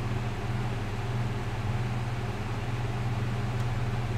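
A steady low hum over an even hiss of background noise, with no other event.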